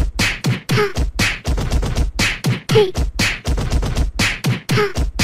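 Background music with a fast, steady beatbox-style beat, with a short falling vocal sound recurring about every two seconds.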